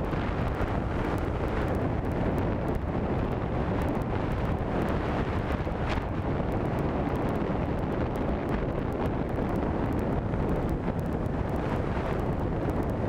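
Wind rushing over the microphone of a jet ski cruising steadily along a river, with a Kawasaki personal watercraft's engine running underneath.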